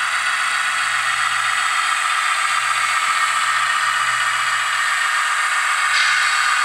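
Mehano model of a BB 61000 diesel locomotive with a digital sound decoder, its small speaker playing a steady diesel engine running sound as the model rolls along the track. There is a faint click about six seconds in.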